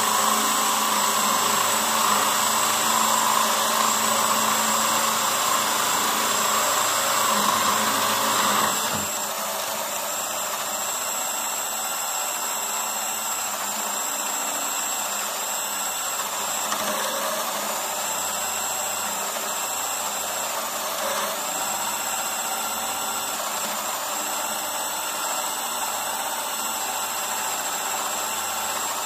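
Two Metabo cordless drills boring 22 mm spade-bit holes through 40 mm larch at the same time. The SB 18 LTX BL I drill finishes its hole and stops about nine seconds in, and the sound drops noticeably; the PowerMaxx BS compact drill-driver keeps drilling steadily through the rest.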